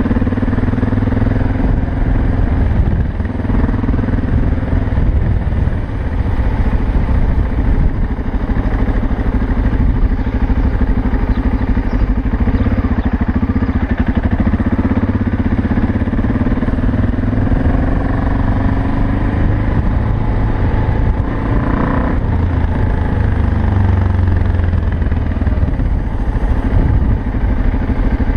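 BMW 650 GS single-cylinder engine running as the motorcycle rides along, its note rising and falling a little with the throttle.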